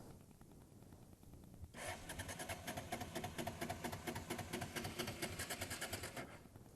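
Honda Deauville NT650V's electric starter cranking its V-twin engine for about four seconds in a fast, even rhythm without the engine catching, then stopping. The bike has cut out, typical of fuel starvation of some sort, as the rider judges it.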